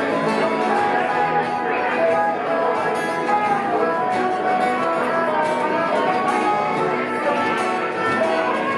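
Acoustic bluegrass band playing: picked banjo and strummed acoustic guitars, with a fiddle.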